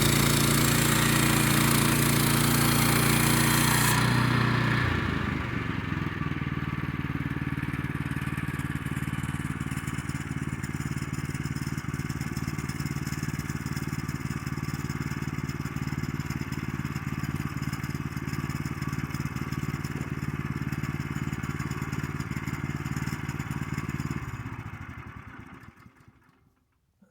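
Woodland Mills portable bandsaw mill's gas engine running fast with the blade sawing through cherry wood and a loud hiss, then easing down to a steady idle about five seconds in. Near the end the engine shuts off and runs down to silence.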